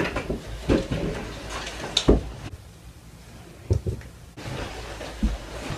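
A handful of short dull knocks and bumps, the loudest about two seconds in.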